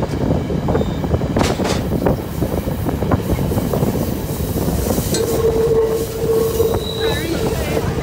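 Rocky Mountaineer passenger train running on the rails: a steady rumble of wheels on track with scattered clicks. From about five seconds in comes a steady wheel squeal as the train rounds a curve.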